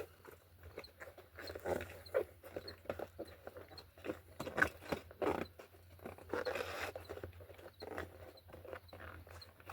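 A 29 x 2.0 bicycle tire being worked by hand onto the rim: irregular rubbing, scraping and clicking of rubber against the rim as the bead is pushed over.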